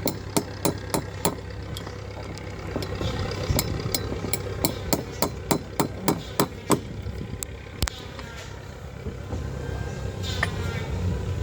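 Hammer tapping on a caulking tool in quick runs of sharp strikes, two to three a second, with a single strike near 8 s; this is typical of working old caulking out of a wooden hull's seams. A steady low hum runs underneath.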